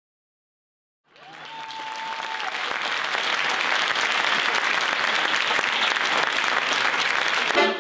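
Theatre audience applauding, fading in about a second in and swelling to a steady clapping.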